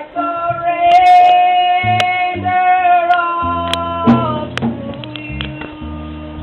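Church music: a long note held for about four seconds over a moving bass line, then softer held chords.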